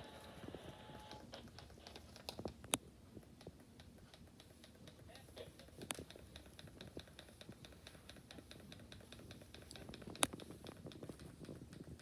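Faint, rapid clicking and tapping, with three sharper clicks standing out, a few seconds apart.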